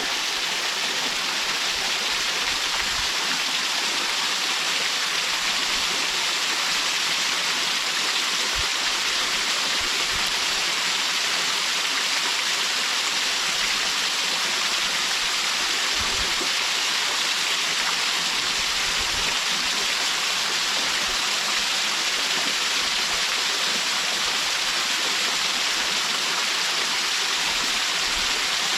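Small mountain waterfall: water falling and splashing into the pool in a steady, even rush, with now and then a faint low thump.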